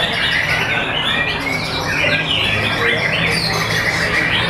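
Several caged white-rumped shamas singing at once: a dense, continuous run of overlapping quick whistles, sweeps and chirps.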